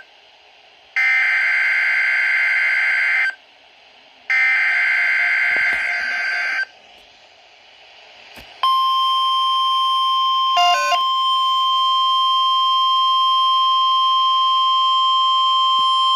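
Emergency Alert System SAME header data bursts: two harsh two-pitched screeching bursts of about two seconds each, a second apart. After a pause of about two seconds comes the NOAA Weather Radio warning alarm, a single steady high tone held for about nine seconds, briefly broken by a stuttering glitch about two seconds in.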